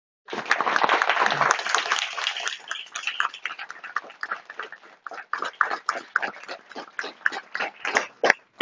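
Studio audience applauding: dense clapping at first that thins out over the following seconds into scattered single claps, dying away near the end.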